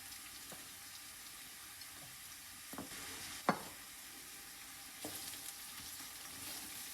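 Onions and herbs sizzling steadily in hot olive oil in a pot as they are stirred, with a utensil knocking against the pot a few times, the sharpest knock about halfway through.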